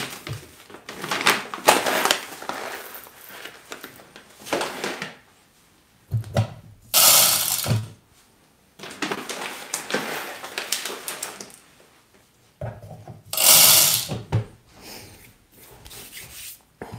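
Coffee beans rattling as they are poured into the hopper of a De'Longhi La Specialista Arte, then its built-in burr grinder running in two short bursts of about a second each, near the middle and near the end, topping up the dose in the portafilter.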